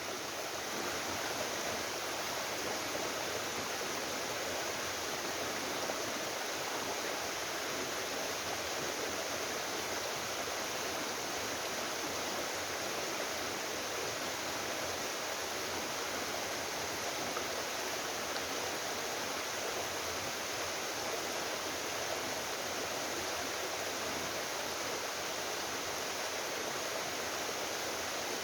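Mountain waterfall plunging into a rocky stream: a steady, unbroken rush of falling water.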